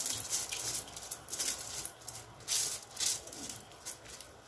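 Wet washed rice being shaken and scraped out of a mesh sieve into a pot of boiling water: a run of short, irregular rattling, scraping strokes.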